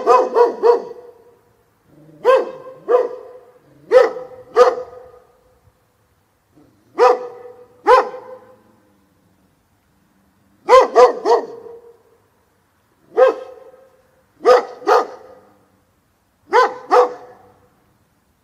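Dog barking in repeated bursts of two to four sharp barks, with pauses of one to two seconds between bursts.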